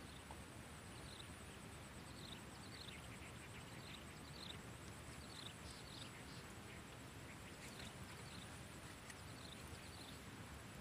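Faint bird calls: runs of short, quickly falling chirps repeating every second or so, over quiet marsh ambience with a thin, steady high buzz.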